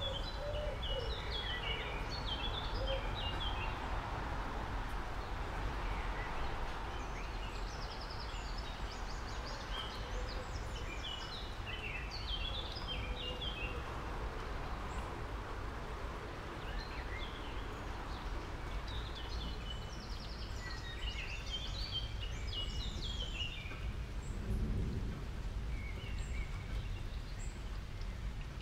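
Small birds chirping in quick clusters every several seconds over a steady background hiss.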